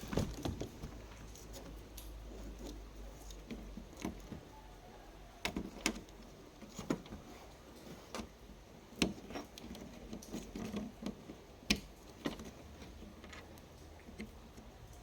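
Irregular small clicks, taps and light scrapes of tools and parts being handled on a workbench during a TV power supply board repair, with a few sharper clicks scattered through.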